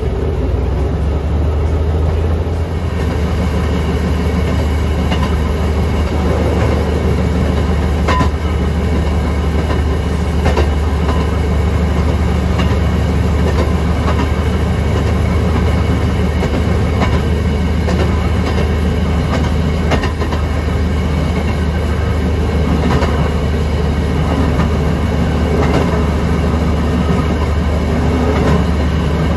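Railroad speeder (track motorcar) running along the rails: a steady low engine drone, with the wheels clicking over rail joints now and then.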